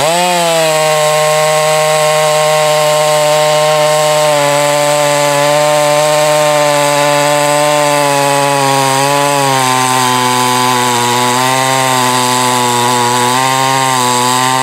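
Husqvarna 440e 40 cc two-stroke chainsaw held at full throttle while cutting through a log. The engine note holds steady under load, then sags lower about nine to ten seconds in and wavers as the chain works deeper into the wood.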